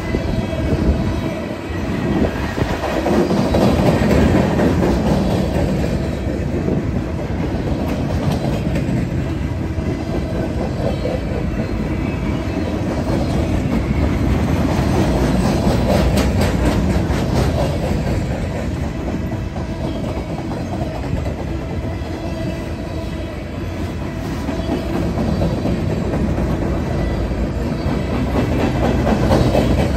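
Freight train of loaded flatcars rolling past close by: a steady, loud rumble of steel wheels on rail with clickety-clack as the trucks cross rail joints, and a run of sharper clacks about halfway through.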